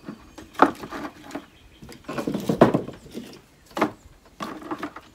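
Split hickory chunks knocking together and clattering into a plastic bucket as they are dropped in by hand. A sharp knock comes about half a second in, a longer run of clatter around two to three seconds, another knock near four seconds, and more clatter near the end.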